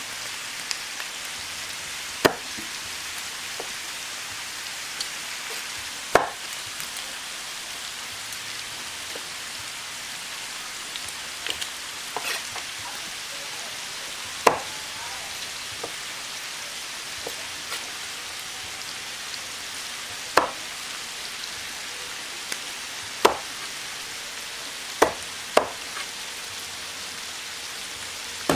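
A kitchen knife cutting through pork intestine and striking a thick wooden chopping block: single sharp knocks a few seconds apart, two in quick succession near the end. Underneath is a steady sizzling hiss from a griddle of frying pork.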